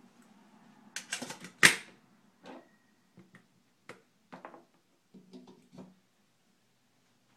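Stainless steel lid of a West Bend electric percolator being set onto the pot: a quick metal clatter about a second in, sharpest at the end, followed by a string of lighter clicks and taps.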